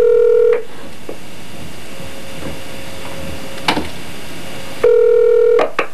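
Telephone ringback tone heard over a phone line: a steady ring that stops about half a second in, then line hiss with a single click, then a second ring near the end that breaks off in clicks as the call is answered.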